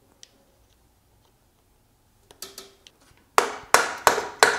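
Sharp metal-on-metal tapping on a Volvo M40 gearbox while the laygear shaft and its spacer are worked into line: a few light clicks, then about two and a half seconds in, four ringing strikes about three a second.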